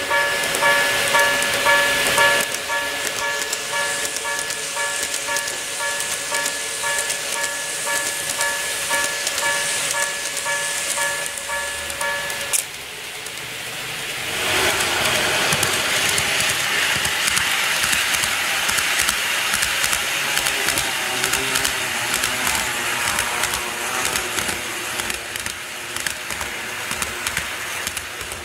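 Model railway level crossing's electronic warning bell rings over and over, then cuts off with a click about 12 seconds in. After a short lull, the steady running noise of N-gauge model trains rolling along the track rises and continues.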